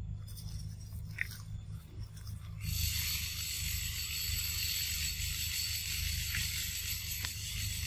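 A high, steady buzzing drone of forest insects starts abruptly about three seconds in, over a low rumble; a brief high chirp sounds about a second in.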